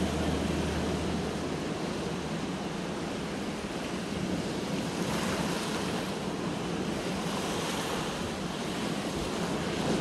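Sea surf breaking on a sandy beach: a steady rushing wash of waves, with one wave crashing a little louder about five seconds in.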